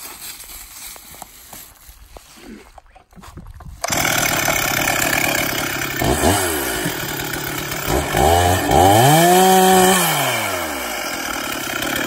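Gas chainsaw coming in abruptly about four seconds in and running, revved up and back down twice: briefly once, then longer and loudest.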